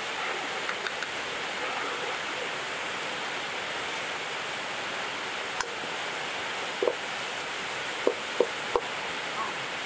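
Chillies, ginger and lemongrass sizzling in a hot wok: a steady frying hiss. Late on come a few sharp knocks of wooden spatulas against the wok as it is stirred and tossed.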